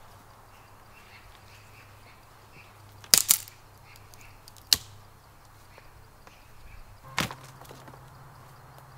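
Sharp chopping strikes, a quick pair about three seconds in, another about a second and a half later, and one more near the end, over faint bird chirps.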